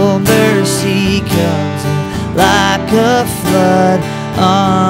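Acoustic guitar strummed, with a man singing a melody over it.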